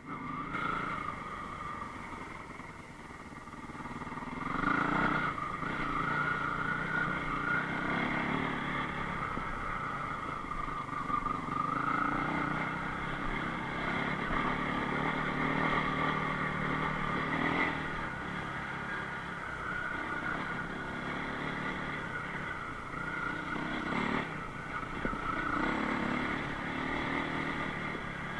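Enduro motorcycle engine running and revving, its pitch rising and falling as it rides, getting louder about four seconds in, with a few short knocks.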